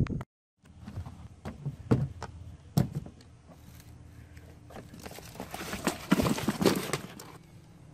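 Handling noises from a cardboard box of fish being shifted and lifted out of ice in a cooler: scattered knocks, rustling and scraping, busiest about five to seven seconds in. A single thud comes right at the start.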